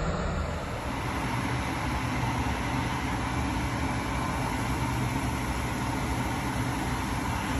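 Mixed vegetables steaming and sizzling in a covered pan on an electric coil stove: a steady hiss with a low rumble under it.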